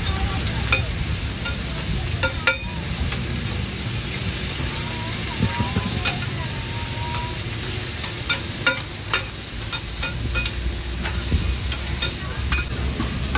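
Seafood omelettes and bean sprouts sizzling steadily in oil on a large flat griddle. Metal spatulas scrape across the griddle and clink against it, sharp clicks dotted irregularly through the sizzle.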